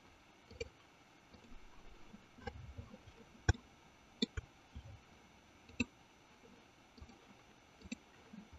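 Computer mouse buttons clicking, a few irregularly spaced single clicks, as menu items and buttons are picked in Blender.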